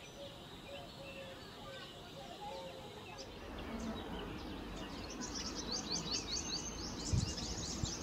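Small birds chirping in the background: faint scattered chirps at first, then a fast run of high, downward chirps in the second half. A couple of low thumps near the end.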